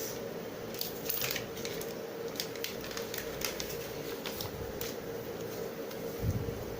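Small handling sounds: a scattering of short clicks and crinkles, like paper or plastic being snipped and crumpled, with a dull thump near the end, over a steady low hum.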